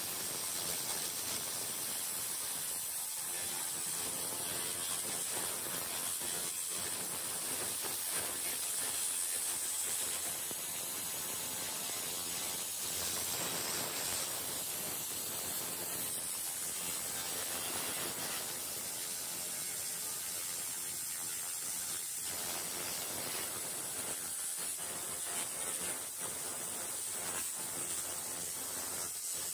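Handheld 300W pulsed fiber laser cleaner running steadily, a continuous high hiss with fast fine crackling as the beam ablates rust from metal.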